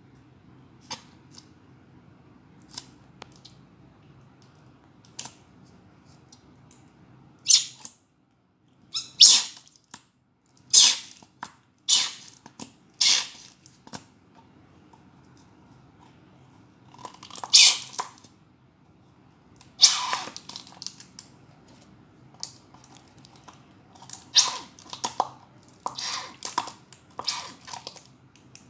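Glue and slime mixture being worked in a bowl: a series of short, irregular squelching and scraping sounds, sparse at first and coming thicker and louder from about a quarter of the way in.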